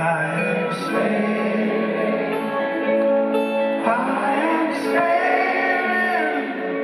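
A live rock band playing, with acoustic guitar and sustained notes, and some singing over it.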